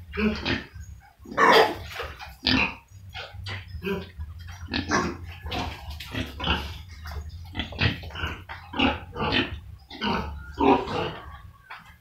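Several domestic pigs grunting, with short calls following one another several times a second and a few louder ones among them. A low, steady hum runs underneath.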